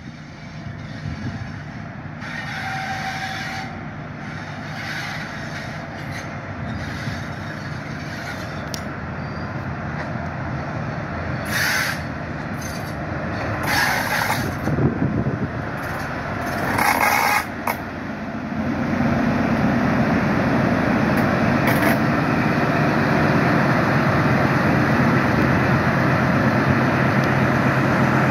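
A Class 43 HST power car's diesel engine and a train of Mk3 coaches rolling past. There are a few short hisses in the middle, and the engine drone grows louder and holds steady as the power car comes alongside.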